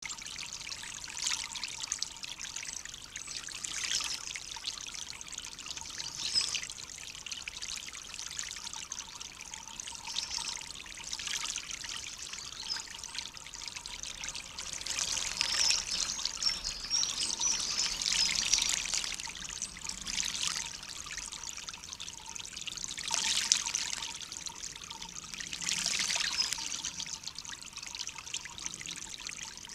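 Water splashing and trickling in a stone birdbath as a male bullfinch bathes, coming in bouts of a few seconds.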